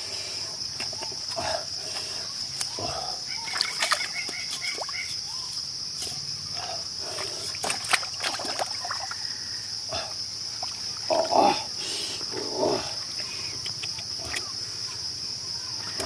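A steady, high-pitched insect chorus drones throughout, with scattered clicks, knocks and rustles of handling close by and a louder burst of rustling or knocking about eleven seconds in.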